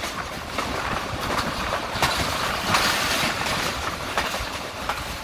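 Passenger train running along the line, heard from an open coach window: a steady rolling rumble of wheels on rail, with irregular sharp clicks as the wheels pass over rail joints.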